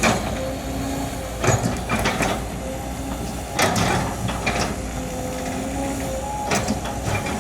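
Excavator's diesel engine running steadily, with sharp clanks and cracks in clusters a few times, about every one and a half to two seconds.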